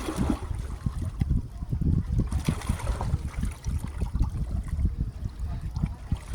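Small lake waves lapping and trickling at the water's edge, over an uneven low rumble.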